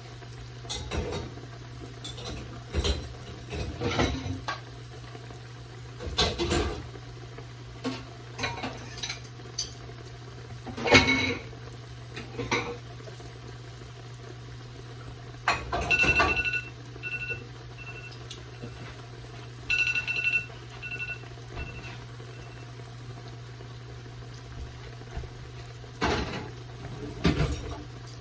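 Kitchen utensils knocking and clinking against a pan and dishes while mushrooms are fried, in scattered sharp strikes. Two quick runs of short high electronic beeps come about 16 and 20 seconds in, over a steady low hum.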